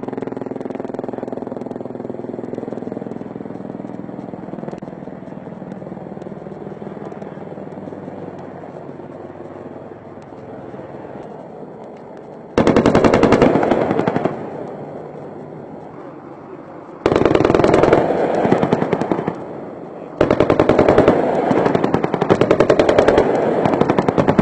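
Steady drone of an AH-64 Apache helicopter, then three long bursts of rapid automatic fire in the second half, the kind of fire an Apache's 30 mm M230 chain gun makes; the last burst is still going at the end.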